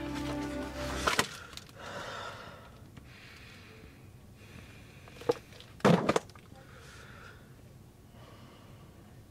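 Music ends about a second in, cut off by a sharp click. After that a person breathes heavily, in slow, drawn breaths. A single knock comes about halfway through, and a louder cluster of knocks follows just after it.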